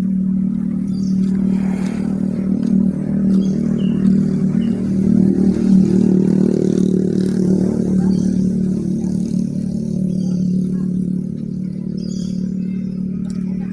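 A steady motor hum, swelling a little around the middle, with brief high chirps scattered over it.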